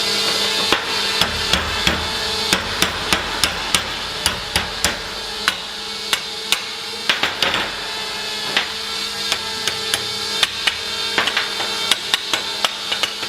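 Hammer striking steel plate parts: a long run of sharp metallic knocks, irregular, up to about three a second with short pauses between groups.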